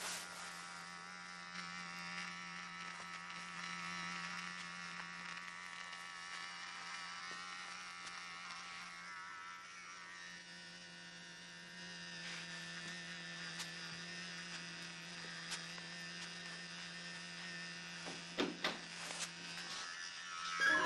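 Electric razor buzzing steadily, a constant hum with a thin buzz over it, with a few sharp clicks near the end.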